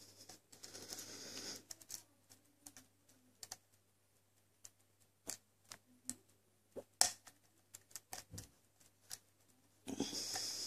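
Lock pick ticking against the pins of an ASSA 7-pin tumbler lock under light tension: small irregular metallic clicks, one sharper click about seven seconds in. A soft hiss at the start and again near the end.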